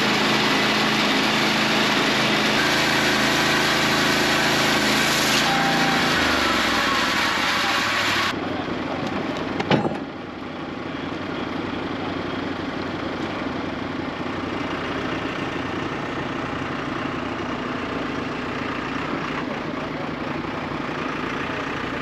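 Lucas Mill swing-blade sawmill's engine running steadily while cutting a log. About eight seconds in the sound changes abruptly to a heavy machine's engine idling steadily, with one sharp knock just before ten seconds.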